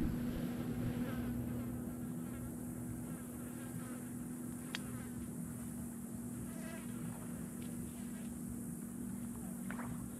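Flies buzzing around dead fish, a steady low drone.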